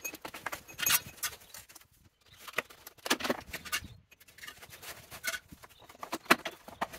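Channel-drain grates being lifted off and set down on block paving, with scraping as sand and muck are cleared from the drain channel: a run of irregular clicks, knocks and scrapes.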